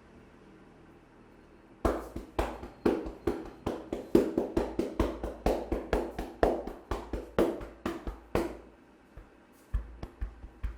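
Barber's hands striking rhythmically in a percussive massage (tapotement), about three to four slaps a second. The slapping starts about two seconds in, stops briefly near the end, then starts again.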